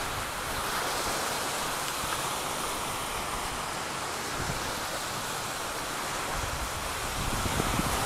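Steady rushing noise of surf on the shore and wind on the microphone, growing a little louder near the end.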